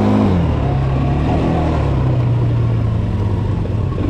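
ATV (quad bike) engine being ridden, its pitch climbing briefly at the start and then dropping back to a steadier, lower running note.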